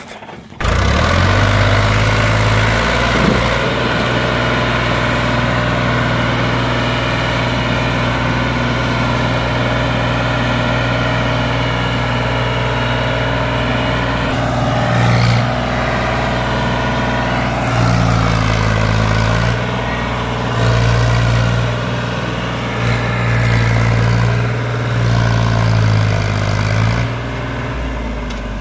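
Powertrac tractor's diesel engine running under heavy load as it hauls a brick-laden trolley up a dirt slope. The revs swell several times in the second half.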